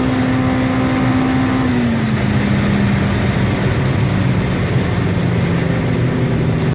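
Honda Civic Type R EP3's K20 two-litre four-cylinder engine running loud and steady at high revs; its note drops a step about two seconds in, then holds steady.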